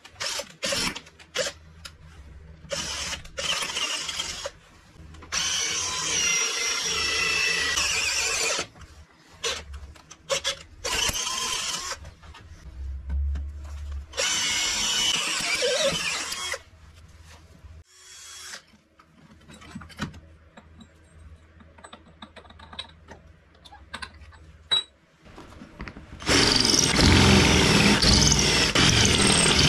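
A power tool running in stop-start bursts of a few seconds each, with clicks and knocks of handling in the gaps between; a longer, louder run starts near the end.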